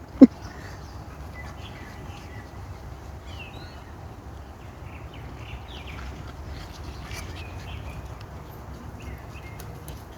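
Outdoor background sound: scattered faint bird chirps over a steady low rumble, after one short loud voice-like burst at the very start.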